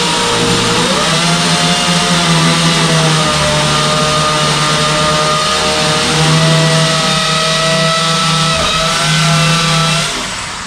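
A handheld electric power tool's motor runs at speed under load, its pitch stepping up and wavering slightly as it works, then it cuts off near the end.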